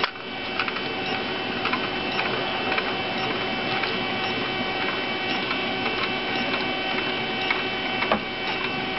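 Stepper motors of a homemade CNC coil winder running, a steady whine of several held tones with a few faint clicks, as the spindle winds string and the table traverses.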